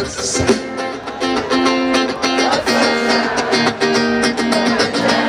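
Live band music with strummed guitar chords in a steady, even rhythm.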